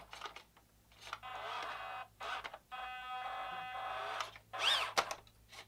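Electric drive motor and gears of a 1/14 WLtoys 14600 RC dump truck whining in several short spurts as it drives with a heavy rock in its raised tipper bed. A quick rising and falling whine and a sharp click come near the end.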